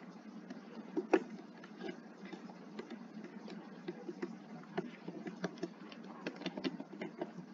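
Computer keyboard keystrokes typed slowly and unevenly during a typing test, single clicks at irregular intervals, one louder keystroke about a second in, coming closer together later.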